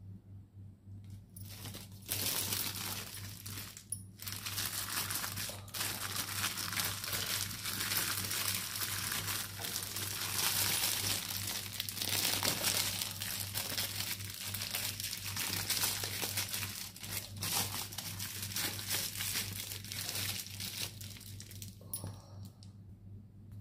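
Plastic cling film crinkling as it is stretched and pressed by hand over a metal tray of ice-cream mix. It starts about two seconds in and goes on, with brief pauses, until near the end.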